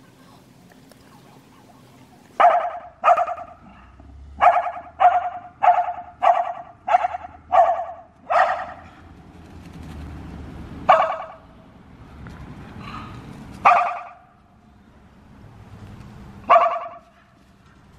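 Red kelpie-type dog barking: a quick run of sharp barks, about two a second, then a few single barks spaced a few seconds apart. This is alert barking at passing traffic, and a low rumble swells between the later barks.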